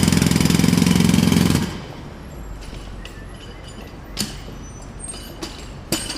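Jackhammer hammering in a rapid, loud stream of blows that stops about a second and a half in. After it stops, a quieter background remains, with a few sharp knocks and clinks near the end.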